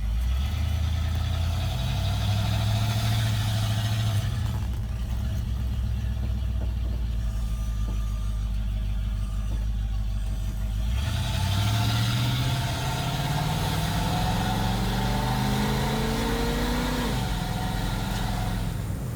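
Small-block V8 exhaust through Black Widow Neighborhater mufflers, a steady low drone while driving, then the engine note rising as it accelerates from about halfway through, falling away near the end.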